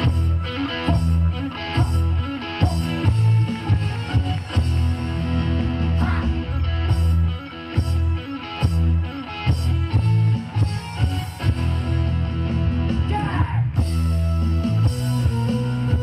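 Loud recorded yosakoi dance music with a rock-style electric guitar and a heavy, rhythmic bass line, played over stage speakers.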